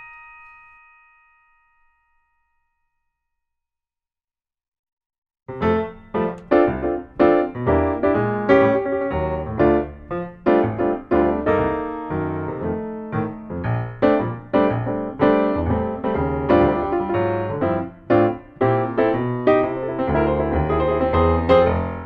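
Background music: the last ringing notes of one track fade away, a few seconds of silence follow, then a piano track starts about five and a half seconds in.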